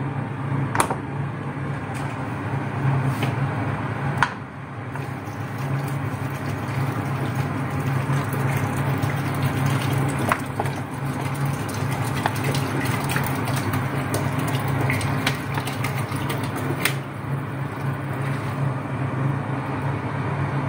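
Water poured in a steady stream from a plastic bottle into a steel pressure cooker of minestrone, with a few light knocks. A steady low hum runs underneath.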